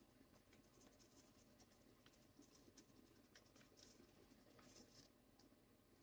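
Faint scratching and irregular light clicking of a fine-tip Sharpie drawing on paper while a clear plastic spirograph gear is rolled around inside its ring.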